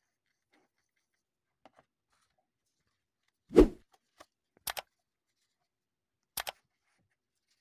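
Subscribe-button animation sound effects: a loud low thump about three and a half seconds in, then two sharp mouse-click sounds, each a quick double click, about a second and a half apart.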